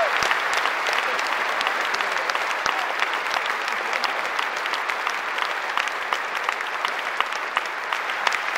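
Large audience applauding, the clapping slowly dying down.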